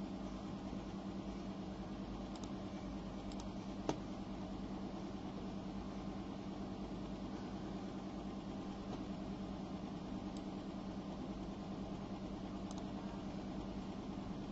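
Steady low mechanical hum of room equipment, with one sharp click about four seconds in.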